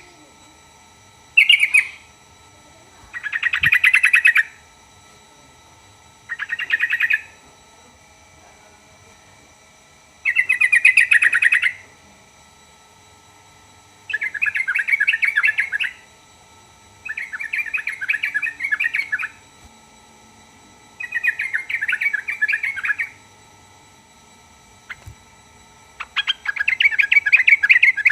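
Yellow-vented bulbul (trucukan) singing short, bubbly chattering phrases of one to two seconds each, repeated every few seconds, nine in all. A faint steady high tone hums underneath.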